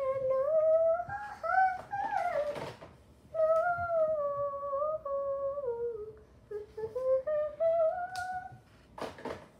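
A young girl humming a wordless tune in long, gliding notes, with a short break about three seconds in.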